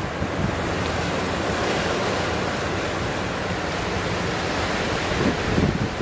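Sea surf breaking in steady, dense noise, with strong wind buffeting the microphone in low rumbling gusts near the end.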